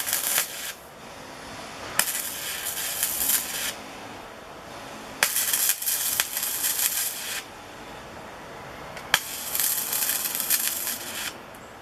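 MIG welding arc crackling on thin 20–22 gauge sheet steel in four short stitch welds, each starting with a sharp crack as the arc strikes and lasting one to two seconds. The machine is a YESWELDER 205DS with its inductance turned down to −10 for a softer, wetter arc that is less likely to burn holes.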